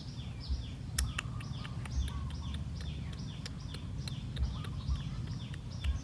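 Small birds chirping steadily in the background: many short falling chirps, several a second. A few low thumps and sharp clicks are mixed in.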